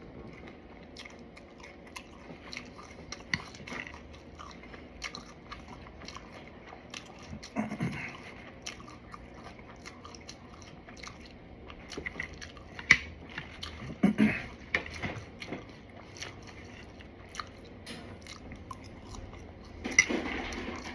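Close-up chewing and biting of crunchy fried food, with many sharp crackles scattered throughout.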